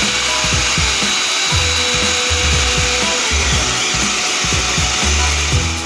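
High-velocity pet dryer running, a steady rush of air blown into a rough collie's coat.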